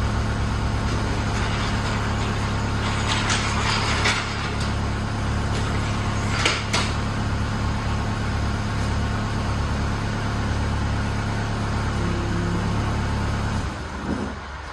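An engine running steadily at one constant speed, with sharp metallic clanks about three to four seconds in and again about halfway through. The engine sound drops away shortly before the end.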